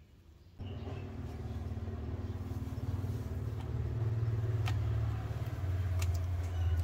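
A steady low engine drone, like a motor vehicle running, starting about half a second in, with a couple of sharp clicks from steel scissors snipping through a rubber glove.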